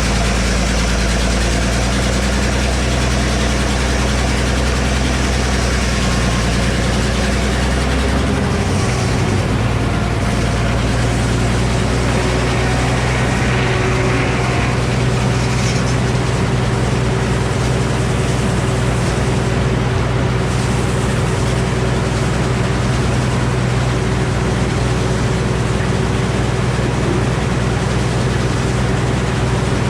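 Engine powering the sawmill, running steadily, with its note shifting about eight seconds in.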